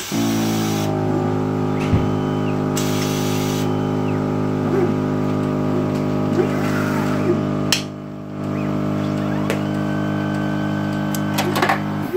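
ThinPrep T5 slide processor running: a steady mechanical hum made of several pitched tones starts abruptly, drops away briefly about eight seconds in, and cuts off near the end. Short whirs and clicks from the moving mechanism sound over the hum.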